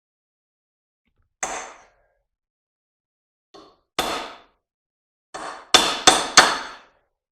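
Hammer striking a punch to drive a brass bushing out of a cast aluminum electric-motor end bell. Sharp metallic clangs with a ringing tail come singly at first, then three hard blows in quick succession near the end.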